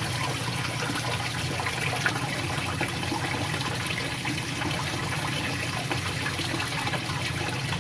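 Water draining steadily from an upper reservoir into a lower one through valves opened by a float switch, with a steady low hum beneath the running water.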